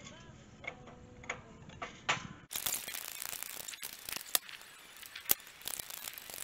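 Hydraulic bottle jack in a press being pumped by its handle bar to force a bushing into a pivot bore: irregular metallic clicks and ticks, a few with a short ring, and several sharper clicks in the second half.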